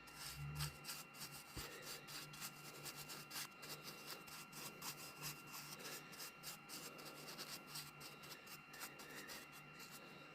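Faint, rapid rubbing strokes on the wood of a hand-carved kuksa cup, a quick uneven run of short scrapes.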